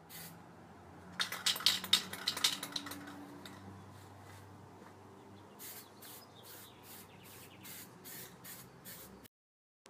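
Spray-on bed liner being sprayed onto a truck's lower body panels: a dense run of sputtering sprays for about two seconds, then short separate sprays about two a second, cutting off suddenly near the end.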